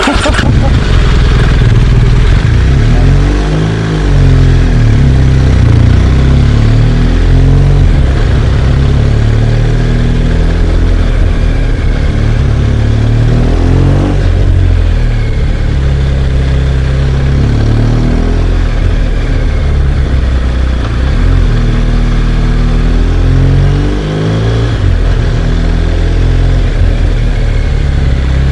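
BMW R1200GS Adventure boxer-twin motorcycle engine running under way, its note rising and falling a few times with the throttle. The engine is hot at about 101 °C, a temperature at which the rider says it starts to run badly.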